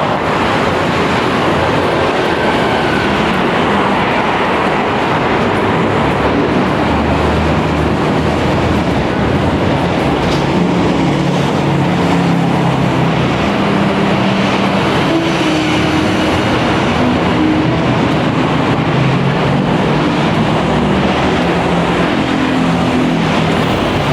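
Loud, steady noise of passing vehicles in a busy city, with low motor hums that shift in pitch through the middle.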